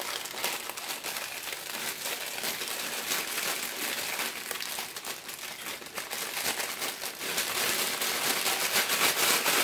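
Clear plastic diamond-painting drill bag crinkling as it is handled and crumpled in the hands, a dense crackling that grows louder toward the end.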